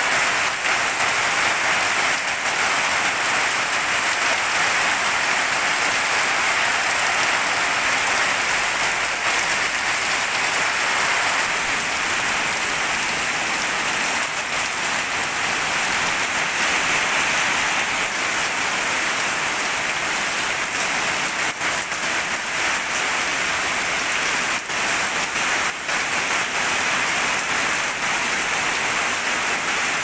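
Heavy rain pouring steadily onto wet ground and standing water, a dense even hiss, with a few sharper drop hits late on.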